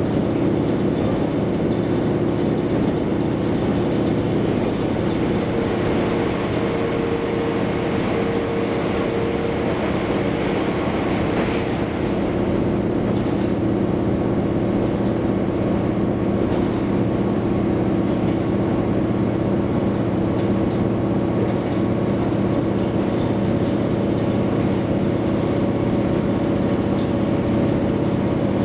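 Diesel railcar running steadily along the line: a constant engine drone over the rumble of wheels on rail, with a few faint clicks.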